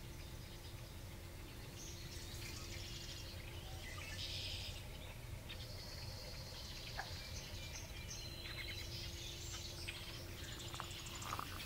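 Marsh ambience: several small birds singing and chirping in short, high, buzzy phrases, over a steady low background rumble with a faint steady hum.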